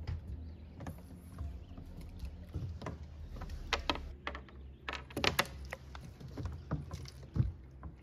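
An irregular run of short knocks and clicks, with a louder low thump near the end.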